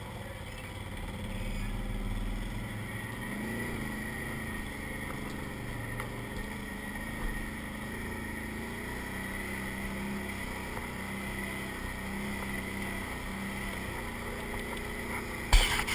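Can-Am ATV engine running at low trail speed, its pitch rising and falling with the throttle over the first few seconds, then holding steady. A brief loud noise comes right at the end.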